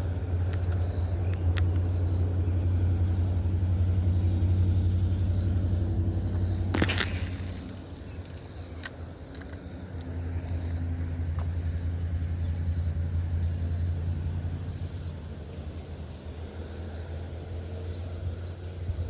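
A low, steady motor drone that drops away briefly about halfway through and then comes back, with a sharp click about seven seconds in.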